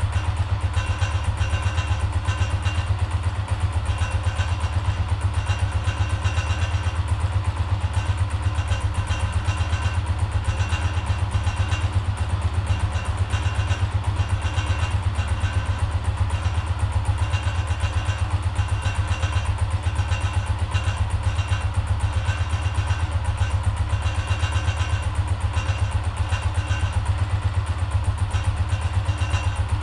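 Honda CGL 125's single-cylinder four-stroke engine idling steadily, an even, fast exhaust beat with no revving.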